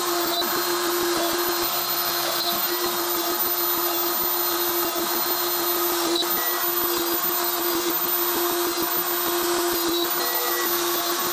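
AMB router spindle of a CNC machine running steadily at speed, a constant pitched hum over a rushing noise, while the machine drills the jig's mounting holes in MDF.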